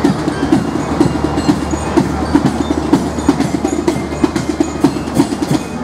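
Carnival music with fast, busy drumming, many quick knocks over a steady low hum.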